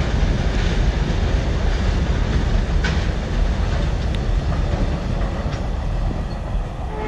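Freight train of flat wagons carrying lorries rumbling across a long concrete river bridge, wheels clacking over the rail joints, as the last wagons and the brake van pass. The rumble eases a little near the end.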